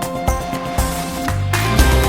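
Background music with a steady beat; about one and a half seconds in, it moves into a fuller, louder section.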